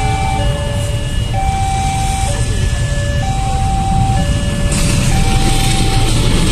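Railway level-crossing warning alarm sounding a two-tone electronic signal that alternates high and low about once a second, over the low rumble of waiting motorcycles. About five seconds in, the noise of an arriving diesel-hauled train rises under the alarm.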